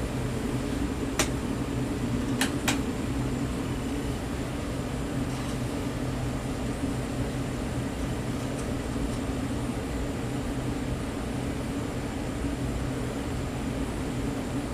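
56-inch agricultural ceiling fan running on its first test, a steady motor hum with a low, even rush of moving air. Three sharp clicks come about one and two and a half seconds in.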